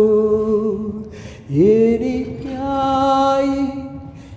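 A single voice singing a Malayalam Christian hymn without instruments. It holds the end of one line until it fades, then about a second and a half in starts a new phrase with an upward slide into a long held note.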